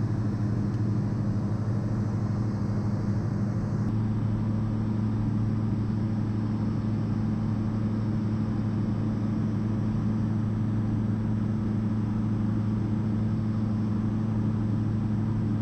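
Steady drone of a Diamond DA40 NG's Austro AE300 turbodiesel engine and propeller heard in the cockpit on approach: an even, unchanging hum with a low steady pitch.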